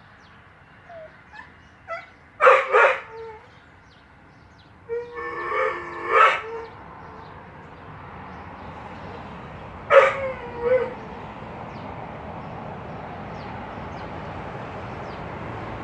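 A dog crying: a few faint whimpers, then loud pitched wailing cries in three bouts, about two and a half, five and ten seconds in. A steady background hiss grows slowly louder in the second half.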